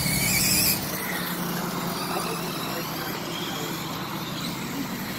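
Electric RC off-road cars racing on a dirt track: faint motor whines rising in short runs over a steady background noise, with a louder high-pitched hiss in the first second.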